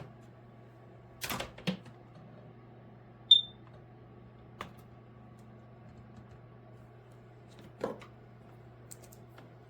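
A single short electronic beep from a car electric kettle's control panel, between a few plastic clicks and knocks as the kettle is handled, over a steady low hum.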